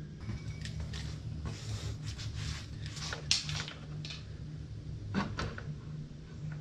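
Scattered light clicks and taps of metal hardware handled at a motorcycle swingarm pivot, the pivot bolt and nut being fitted by hand. A sharper click comes about three seconds in and another near five seconds, over a steady low hum.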